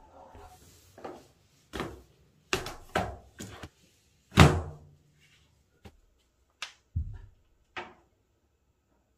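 Household objects such as stacks of books being set down on hard surfaces: about ten separate knocks and thuds, the loudest a heavy thud about four and a half seconds in.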